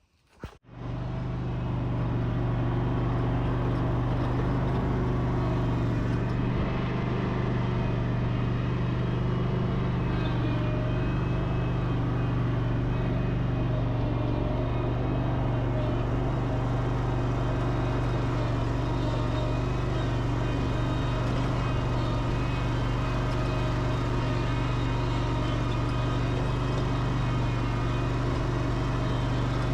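Exmark Laser Z zero-turn mower's engine running steadily, a low even drone that comes in about a second in and holds at one speed.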